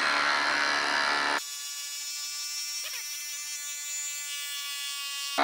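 DeWalt DCF850 Atomic compact impact driver hammering a 6-inch lag screw into a log, a steady buzzing run of impacts. About a second and a half in it suddenly turns quieter and thinner, then comes back full at the very end.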